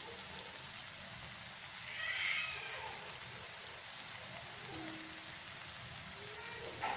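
Egg bhurji frying in a nonstick pan: a steady, quiet sizzling hiss, with a brief louder sound about two seconds in.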